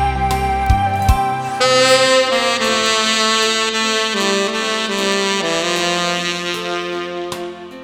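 Saxophone playing slow, sustained melody notes over a backing track; a fuller, brighter note enters about a second and a half in, and the playing eases off near the end.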